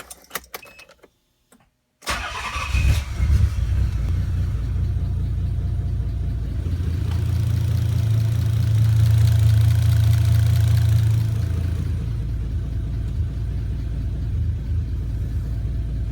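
A few light clicks, then about two seconds in a Nissan 300ZX's V6 engine cranks and starts. It settles into a steady idle, which rises a little for a few seconds in the middle before dropping back.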